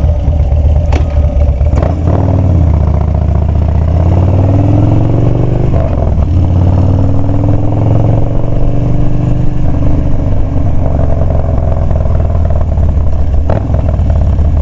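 2015 Harley-Davidson Street Bob's V-twin engine under way: it pulls up through the revs, drops at a gear change about six seconds in, and climbs again through the next gear, with a few sharp clicks.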